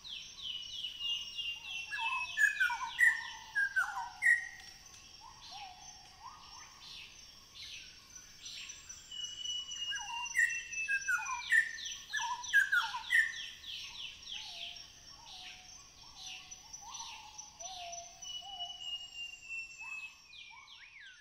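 Rainforest birdsong: a phrase made of a long falling whistle over a fast run of notes, followed by lower swooping notes, repeated three times about nine seconds apart. A steady high hum lies underneath.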